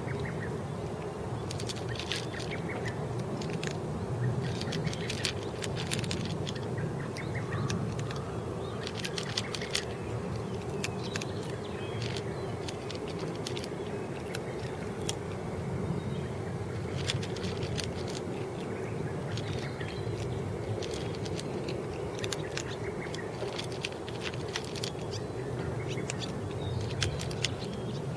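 Kittens eating, with clusters of small sharp clicks and ticks from their chewing at irregular intervals over a steady low hum.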